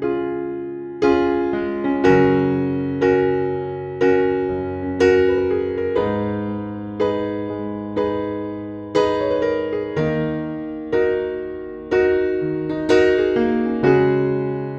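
Solo piano background music: slow chords struck about once a second, each fading before the next.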